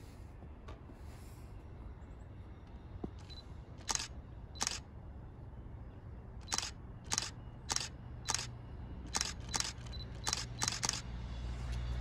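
Camera shutter clicking about eleven times in quick, uneven succession. Beneath it a train's low rumble builds toward the end as it approaches.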